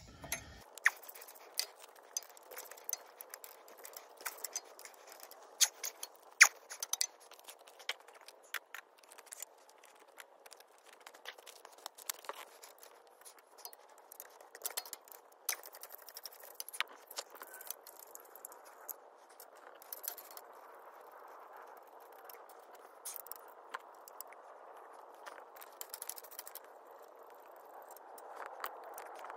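Scattered sharp metallic clicks and clinks of a socket wrench working the clutch pressure plate bolts loose on a tractor's flywheel. The clicks are busiest in the first half and thin out later.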